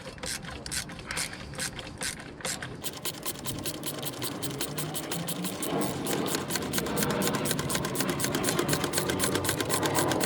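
Ratchet wrench undoing a bolt. It clicks slowly, stroke by stroke, at first, then from about three seconds in runs as a fast, even stream of clicks that grows louder.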